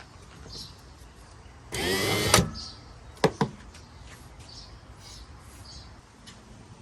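1982–86 Pontiac Firebird pop-up headlight motor run briefly on test power, whirring for about two-thirds of a second with a rising pitch. Two sharp clicks follow about a second later.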